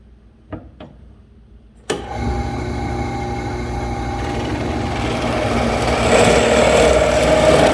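A couple of light knocks, then about two seconds in a drill press motor switches on and runs steadily. From about five seconds in it grows louder and rougher as the bit bores a hole into a cedar board.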